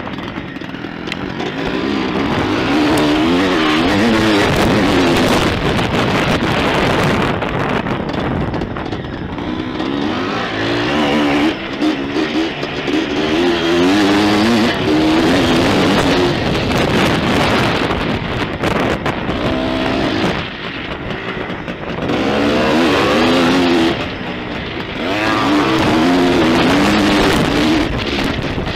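Husqvarna dirt bike engine heard from on board, revving up in repeated rising sweeps as it accelerates and dropping back between them, with the throttle eased off briefly twice near the end.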